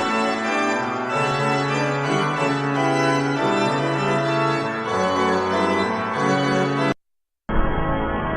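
Organ playing sustained chords that stop abruptly about seven seconds in. After a brief silence, another organ recording with a duller, muffled sound begins near the end.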